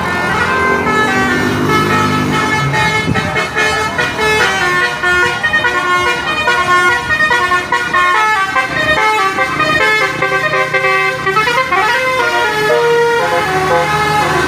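Indonesian bus 'telolet' musical air horn playing a tune, a stream of loud tones stepping from note to note, with a short pitch glide near the end.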